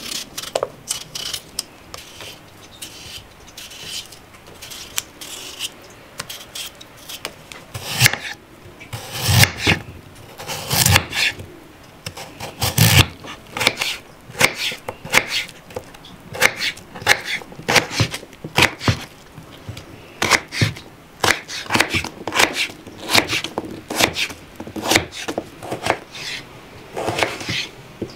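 A kitchen knife scraping the skin off a raw potato in light strokes, then, from about eight seconds in, slicing and dicing the potato on a wooden cutting board in a run of sharp knocks of the blade on the board.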